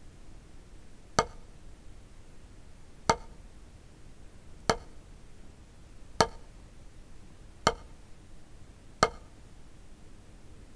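Drumstick striking a drum practice pad six times in slow, evenly spaced single full strokes, about one and a half seconds apart, each a short sharp tap.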